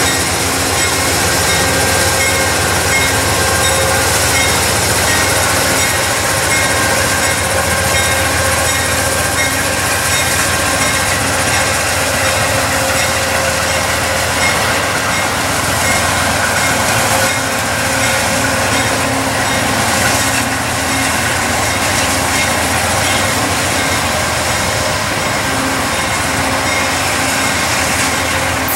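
Amtrak passenger train, led by a GE P42DC diesel locomotive, passing close by at speed: a steady loud rush of steel wheels on the rails as the coaches roll past.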